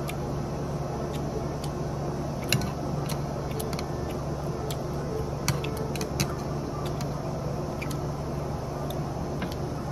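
Chewing crispy bánh xèo wrapped in lettuce and herbs: scattered sharp crunches and mouth clicks, three of them louder, over a steady low background hum.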